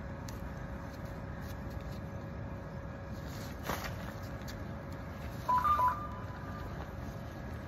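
A short run of electronic beeps in two close pitches, about five and a half seconds in, over a steady low background rumble with a faint constant hum.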